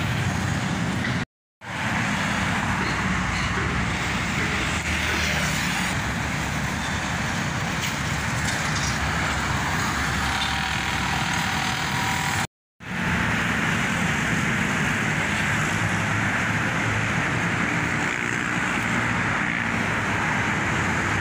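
Steady roadside traffic noise from a busy multi-lane road, with cars, pickups and motorbikes passing. It cuts out completely twice for a split second, once near the start and once about halfway through.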